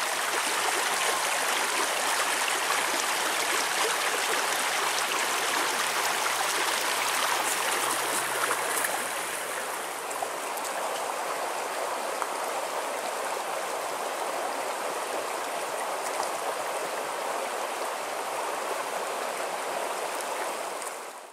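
Shallow rocky creek running over stones: a steady rush of water, a little quieter after about ten seconds.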